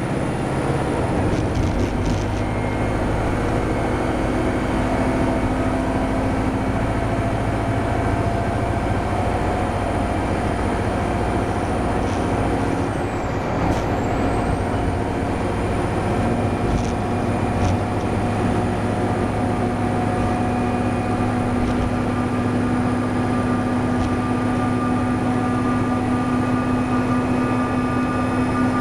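Diesel engine of a NABI transit bus running steadily under load while driving, with a turbocharger whistle over the engine drone. The engine note steps up in pitch about halfway through.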